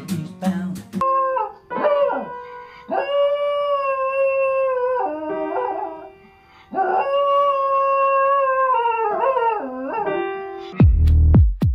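A small white dog howls with its paws on piano keys, in long drawn-out howls that waver and slide at their ends, over held piano notes. Near the end, electronic music with heavy bass beats cuts in.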